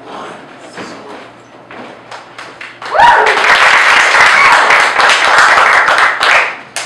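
Audience applause breaks out suddenly about three seconds in and lasts about three and a half seconds. Before it, light footsteps and taps as performers walk across the stage floor.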